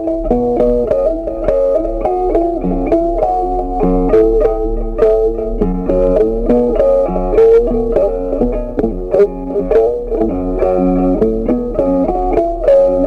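Background music: a quick melody of plucked-string notes over a bass line.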